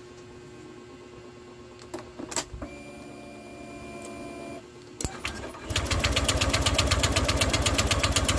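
Honda Click 150 scooter's single-cylinder engine being turned over by its electric starter: a loud, rapid, even pulsing for about three seconds that does not catch and run. This is the hard start of an engine that has lost compression. A few clicks and a steady humming tone come a few seconds earlier.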